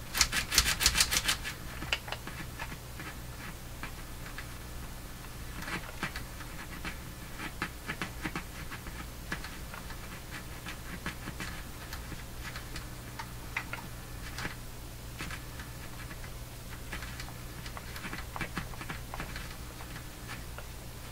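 Fisher receiver's balance control being turned, giving a quick run of crackling clicks in the first second or so, then scattered clicks as it is worked back and forth, over a steady low hum.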